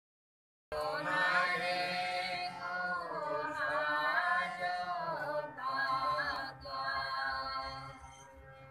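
Congregation singing a hymn together, accompanied by a harmonium's steady held notes. It starts just under a second in and grows quieter near the end.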